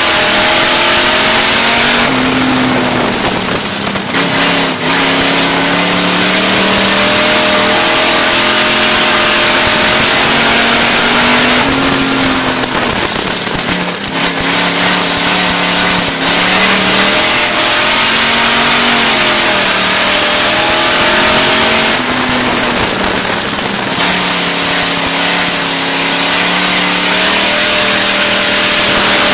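Dirt-track race car's engine heard loud from inside the car. Its pitch sags and turns rough about every ten seconds as the driver lifts for the turns, then climbs again under acceleration down the straights.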